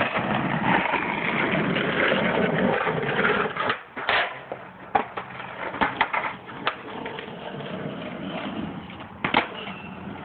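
Skateboard wheels rolling loudly over asphalt for about three and a half seconds, followed by a handful of sharp, separate clacks of boards hitting the ground.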